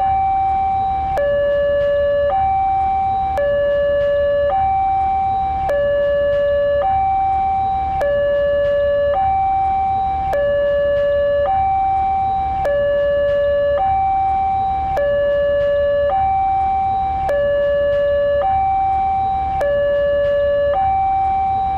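Indonesian railway level-crossing warning alarm sounding a two-tone signal: a lower and a higher tone take turns, each held a little over a second, repeating steadily over a low hum. It is the warning that a train is approaching and the crossing barriers are closing.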